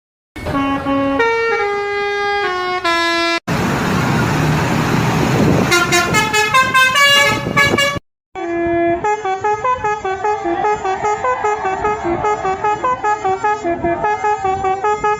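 Indonesian tour-bus 'telolet basuri' multi-tone horns playing tunes: stepped melodies of pitched horn notes in several cut-together bursts, with a rush of noise under them a few seconds in. After a brief break about eight seconds in, a fast tune of short notes pulses about four times a second.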